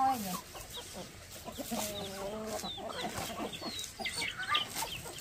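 Chickens clucking in a string of short calls, some of them high and chirping.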